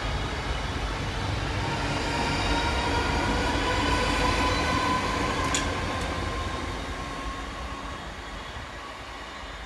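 South Western Railway electric multiple-unit train running past, with rail and wheel rumble and a steady electric motor whine. It fades as the train draws away in the second half. A brief sharp squeak or click comes about five and a half seconds in.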